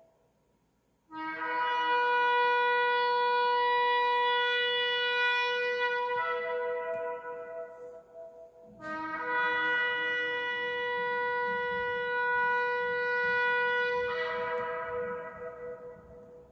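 A horn blown in two long blasts, each held about six or seven seconds, the first starting about a second in and the second about nine seconds in; each blast shifts in pitch near its end before fading.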